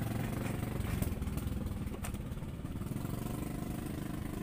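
A small engine running steadily: a low, even drone with a rapid pulse. A single faint click comes about two seconds in.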